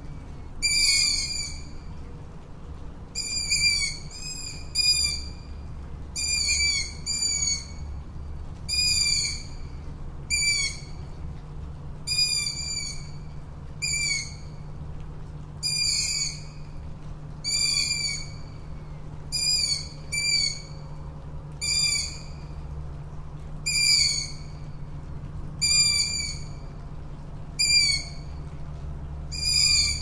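Tawny owl calling over and over: short, high calls come about every one to two seconds, some in quick pairs. A steady low rumble runs underneath.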